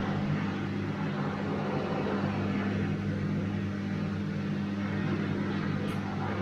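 Bosch washing machine running: a steady motor hum with an even rushing noise over it.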